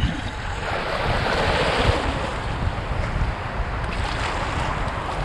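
Ocean surf washing up the beach, one wave's wash swelling about a second in, with wind rumbling on the microphone.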